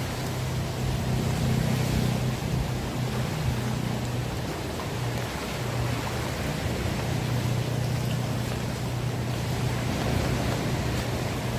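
Heavy rain falling steadily, a continuous hiss with a steady low rumble underneath.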